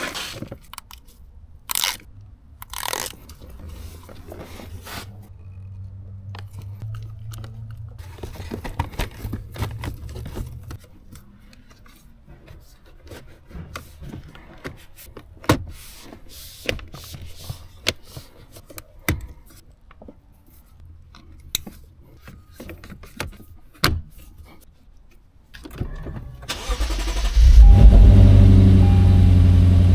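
Scattered clicks and knocks of plastic trim and wiring being handled, then near the end the Lexus GS F's 5.0-litre V8 cranks, fires and settles into a steady, loud idle.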